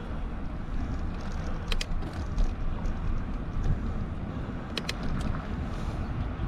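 Wind buffeting the microphone of a moving bicycle, a steady low rumble, with two quick pairs of sharp clicks about three seconds apart.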